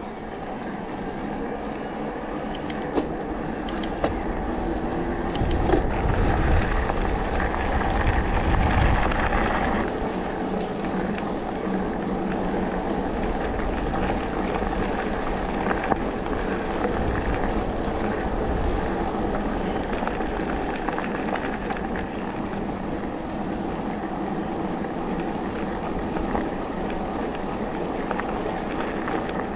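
Electric mountain bike rolling along a forest path: steady tyre and riding noise, with a heavier low rumble for a few seconds about six seconds in and a few sharp clicks.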